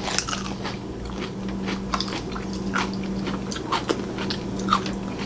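Someone chewing and biting food close to the microphone: a run of small, irregular clicks and crunches over a steady low hum.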